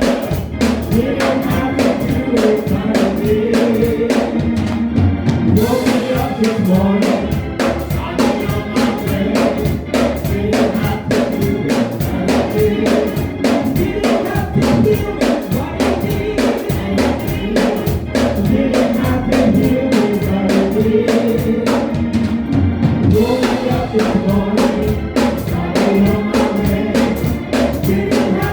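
Gospel choir singing with a live band, drum kit keeping a steady beat.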